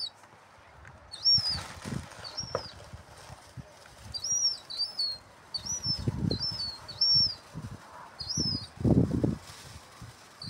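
Young herring gulls giving repeated thin, high-pitched begging whistles, each a short call that rises and falls in pitch, about a dozen in all, while being fed popcorn. A few low rustling bursts come around the middle and again near the end.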